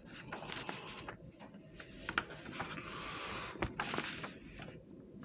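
Paper rustling and small clicks and knocks as a sketchbook page is turned and the book handled, with a longer rustle about three to four seconds in.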